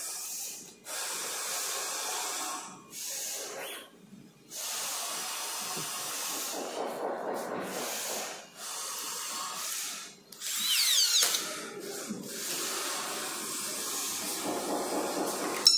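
Cordless drill-driver with a long screwdriver bit running in several bursts with short stops between, turning the screws of a scooter's handlebar stem clamp. A rising whine comes about eleven seconds in.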